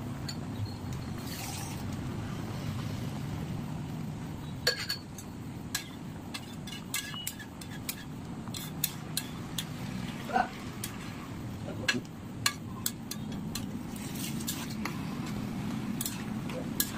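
A metal spatula stirs thick pea curry in a metal kadai, clinking sharply against the pan at irregular intervals from a few seconds in, over a steady low rushing noise.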